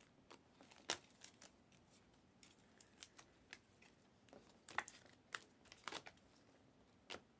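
Faint ticks and crinkles of trading cards and their pack wrappers being handled, with a few louder clicks about a second in and again around five to six seconds in.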